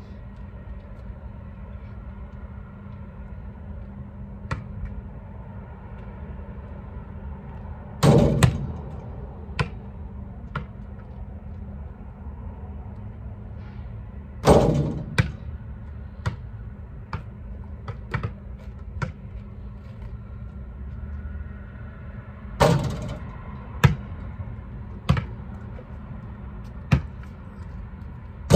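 Basketball shots hitting the hoop's backboard and rim three times, each a loud hit with a short ring, followed by the ball bouncing on asphalt a few times about a second apart; a steady low hum sits underneath.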